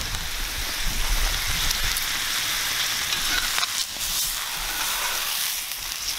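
Steaks searing in a cast-iron skillet over a campfire: a steady sizzle with a few sharp pops.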